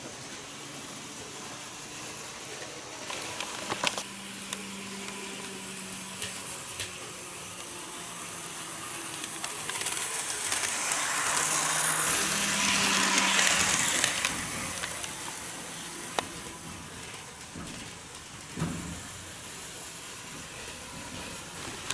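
HO-gauge model diesel railcars running on sectional track: a steady hiss of metal wheels on rail over a low motor hum. The sound swells for a few seconds midway as a train passes close. There are a few sharp clicks as wheels cross rail joints and turnouts.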